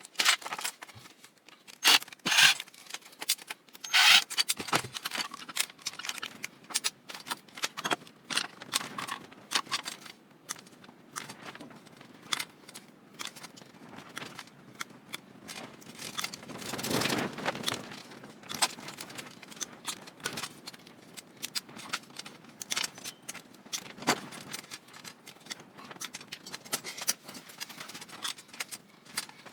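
Hand tools working on the insides of an old Cuisinart food processor during teardown: scattered sharp clicks, snips and clinks of small metal parts, the loudest about two and four seconds in, with a longer scraping stretch past the middle.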